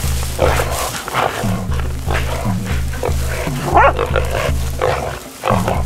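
Background music with a steady bass beat, mixed with squeals and grunts from a wild pig bailed up by hunting dogs; one loud bending squeal near the middle.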